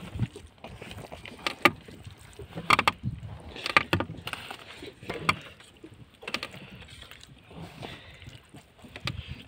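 Scattered sharp knocks and taps on a wooden fishing boat as a handline is worked over the gunwale, the loudest about a second and a half in and again near four seconds, over water lapping at the hull.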